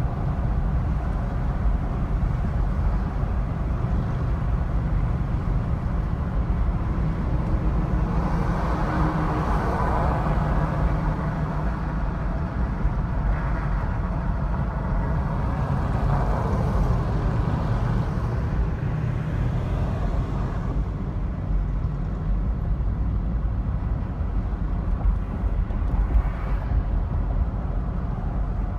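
Steady low rumble of a car's engine and tyres on the road, heard from inside the moving car. The road noise swells for a few seconds about eight seconds in, then settles again.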